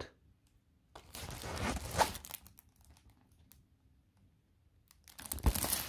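Rustling and crinkling of a diamond painting canvas and its plastic cover film being handled, in two stretches: one about a second in and a louder one near the end.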